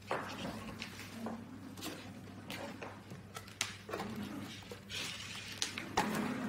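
Desk clocks and their cables being picked up, moved and set down on a tabletop: scattered clicks, knocks and rustles of handling.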